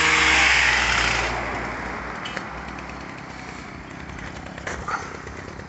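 A road vehicle passing close by: engine hum and tyre noise, loudest in the first second and then fading away over the next two seconds. A couple of light clicks near the end.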